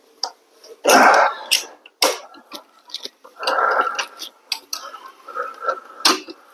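Hand tools working on a motorcycle's rear axle nut and bolt: scattered metal clicks and clinks, with two longer rasping sounds, the loudest about a second in and another near four seconds.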